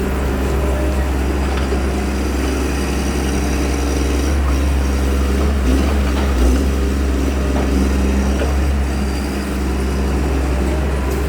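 Excavator's diesel engine running steadily with a deep, even hum, swelling slightly about six seconds in.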